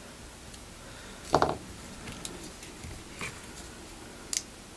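Small clicks and taps from handling an opened iPhone SE: a quick cluster of knocks about a second and a half in, then lighter scattered clicks and one sharp click near the end.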